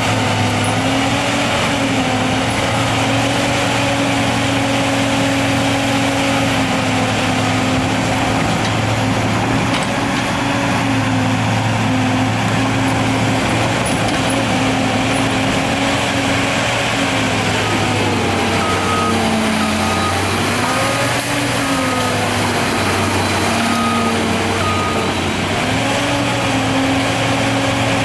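Diesel engine of a Bandit 3500TK tracked stump grinder running steadily at speed. The engine note dips and recovers briefly a little past the middle as the hydraulics take load while the machine moves its boom. An intermittent warning beeper sounds over several seconds in the same stretch.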